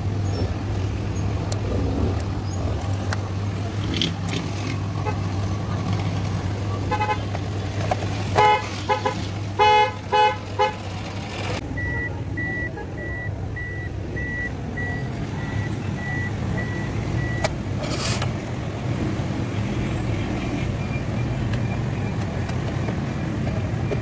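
Car horn sounded in about five short toots, the loudest sounds here, over a low steady hum that stops just after them. Then a dashboard warning chime beeps evenly, about twice a second, for some five seconds.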